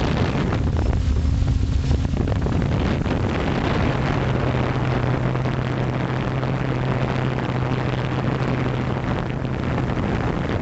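A drone's electric motors and propellers heard through its onboard camera: a steady buzz with wind rushing over the microphone. A low hum sets in about four seconds in and holds until near the end.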